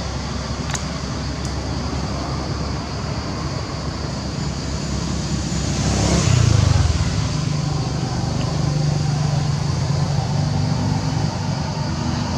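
Motor vehicle engine noise, steady throughout, swelling about halfway through and then settling into a steady low hum.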